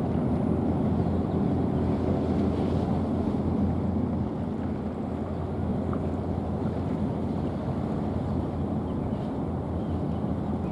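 Steady low rumble of a vessel's engines over water noise, with wind on the microphone; it drops slightly about four seconds in.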